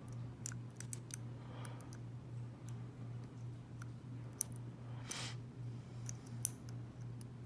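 A dimple pick working the pins of a Keyways dimple lock cylinder under a tension wrench: scattered small metallic clicks and ticks, with a short scrape about five seconds in. A steady low hum runs underneath.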